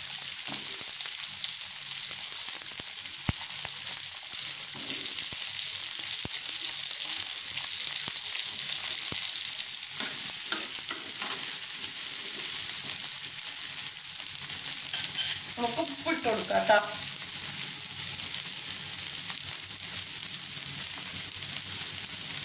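Whole small shallots sizzling in hot oil in a clay pot, a steady high hiss, with a spoon stirring and scraping them against the pot, more loudly a little past the middle.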